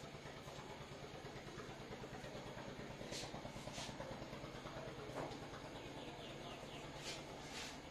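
Chalk scratching on a blackboard in short strokes as words are written. Two strokes stand out about three seconds in and two more near the end, over a steady low background hum.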